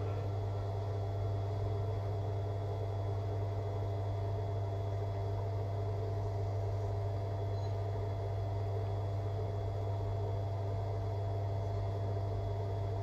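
Steady low hum with faint steady tones and a hiss, unchanging throughout, with no distinct events.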